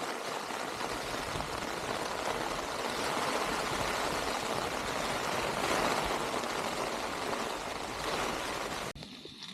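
A steady rushing noise, even and unbroken, that cuts off abruptly near the end.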